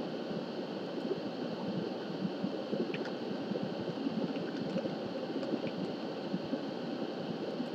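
Steady, rough background noise with most of its weight low in pitch, like a recording's room or equipment hiss, and no distinct events.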